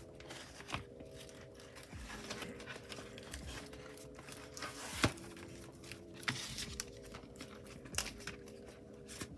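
Paper and plastic album packaging being handled and crinkled, with scattered small clicks and one sharper click about five seconds in, as the album contents are packed back in. Soft background music plays underneath.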